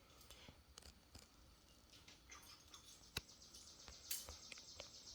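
Near silence with faint, scattered clicks and taps of small metal brake caliper hardware being handled and fitted, with one sharper click about three seconds in.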